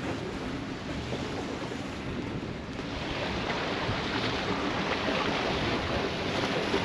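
Wind and water rushing past a sailing yacht's hull under sail, with wind buffeting the microphone. The rush grows louder and hissier about three seconds in.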